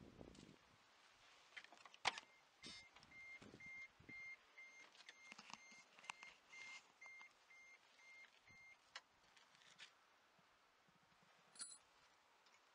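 A van door latch clicks open. Then the cab's warning buzzer beeps faintly and evenly, about twice a second, and stops after about six seconds.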